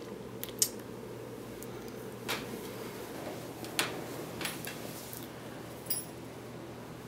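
Quiet room tone with a steady low hum, broken by a handful of short clicks and soft rustles; the sharpest click comes about half a second in, and a few more are scattered through the rest.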